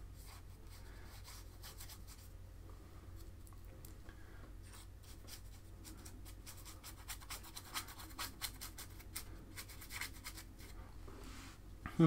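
Paintbrush scratching and rubbing across a canvas in many short, faint strokes as paint is spread on.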